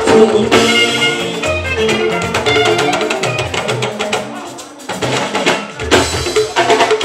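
Live fuji band music: drum kit, hand percussion and guitar playing together, with a lead voice over the band. The music dips briefly about two-thirds through, then the drums come back in.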